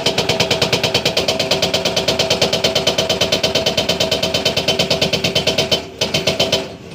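Hydraulic breaker hammering rapidly at about nine or ten blows a second, with a metallic ring on each blow. It pauses briefly near six seconds, hammers again for a moment, then stops.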